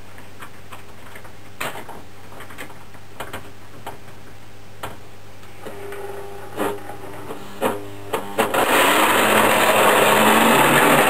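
Lionel burro crane's small electric motor and gearing: a few sharp clicks and short whirs, then about eight and a half seconds in the motor starts a loud, steady gear whir as the crane drives itself along the track. A low hum sits underneath the quieter first part.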